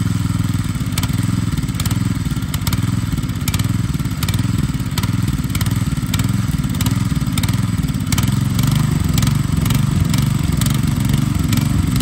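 Small engine of a walk-behind tiller running steadily at idle while the machine is set to plough depth, with a light irregular rattle over its low hum.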